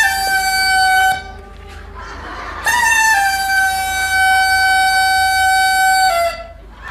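Two long, bright held notes from a wind instrument used as a comic sound effect: a short one of about a second, then a much longer one, each sliding down slightly as it begins and stepping down just before it stops.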